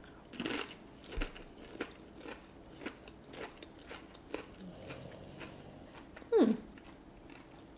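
A person biting into and chewing a mouthful of octopus ceviche with cucumber and avocado: a string of small, irregular crisp crunches. A short voice sound comes about six and a half seconds in.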